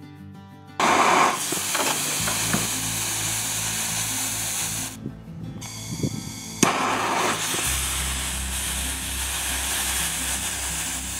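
Loud hissing of a torch flame and a sample of potassium nitrate and sugar rocket fuel burning. It starts suddenly about a second in, breaks off for about a second in the middle with a click as it comes back, and the fuel burns poorly because it still holds too much water. Background music plays underneath.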